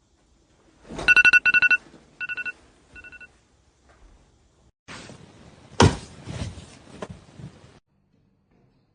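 A telephone ringtone trilling in rapid pulses, then two shorter, fainter repeats. Later comes a stretch of rustling noise with a sharp thump in the middle.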